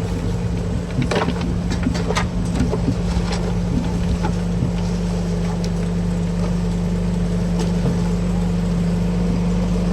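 Bobcat 325 compact excavator's diesel engine running at a steady speed, with a few sharp clanks in the first couple of seconds.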